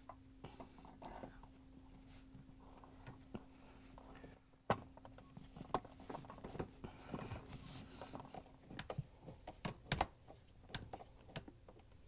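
Faint clicks and scrapes of a nut driver turning in the screws that hold a dishwasher's lower access panel, with a sharp click about five seconds in and a few more near ten seconds.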